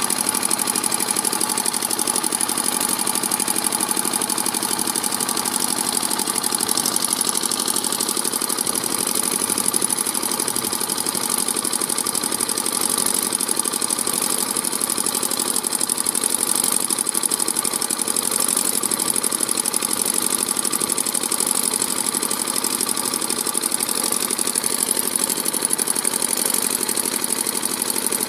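Stationary diesel engine running at a steady speed, close up, with the knock of diesel combustion, just after its fuel-cam shims were reset.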